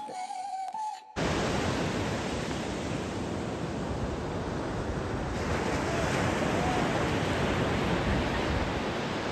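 Ocean surf on a beach: a steady rushing noise of breaking waves that starts abruptly about a second in, as background music cuts off.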